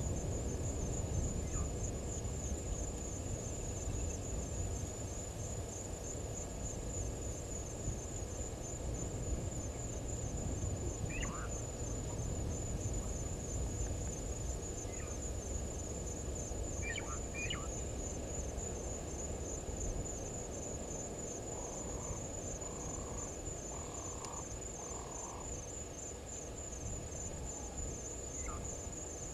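Steady, high-pitched pulsing insect trill over a low outdoor rumble, with a few short high chirps scattered through and a brief run of lower repeated notes about three-quarters of the way in.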